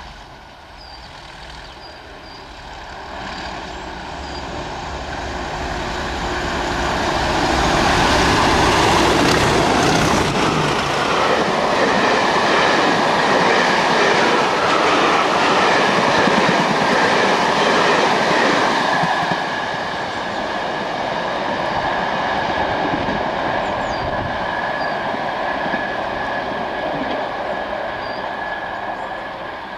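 Two Class 37 diesel-electric locomotives hauling a passenger train past: the engines grow louder on the approach and peak as they pass, then the coaches roll by on the track. A steady high whine holds through the second half as the train draws away.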